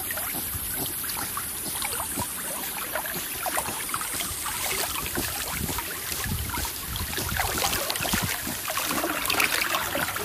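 Water splashing and sloshing around a swimming corgi as it paddles, a dense run of many short, irregular splashes.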